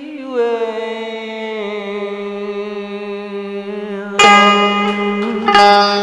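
Backing music for a Vietnamese duet song: a long held tone that steps down in pitch, then bright plucked-string notes from about four seconds in.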